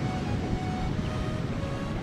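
Background music with held notes over a steady low rush of wind and water.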